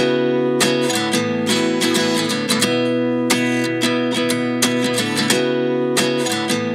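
Background music: an acoustic guitar strummed in a steady rhythm, with no singing.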